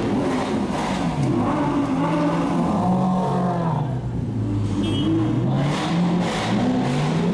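Supercar engines revving hard in repeated blips, the pitch climbing and falling back several times, with a few sharp cracks between the revs.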